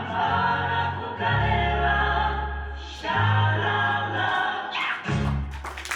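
A group of children singing together over instrumental accompaniment, with held bass notes that change every second or two.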